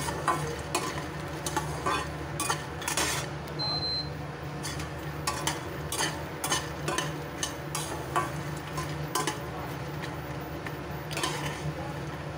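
Metal spatula stirring makhana (fox nuts) as they dry-roast in a metal kadhai without oil, with irregular scrapes and clicks against the pan. A steady low hum runs underneath.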